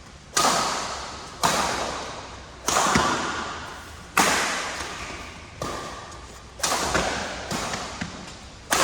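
Badminton rackets striking a shuttlecock in a rally, about eight sharp hits spaced roughly a second apart, each ringing out in the echo of a large hall.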